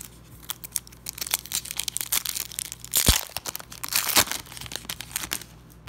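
A foil-lined plastic sticker pack being crinkled and torn open by hand, with two louder rips about three and four seconds in.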